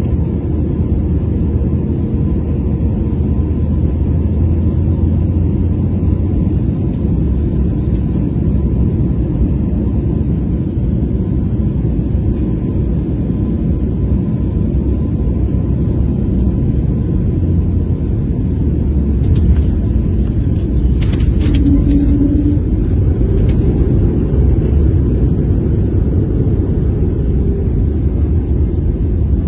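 Steady low rumble of a jet airliner taxiing, its turbofan engines running and the airframe rolling, heard from inside the passenger cabin. A few faint clicks come about two-thirds of the way through.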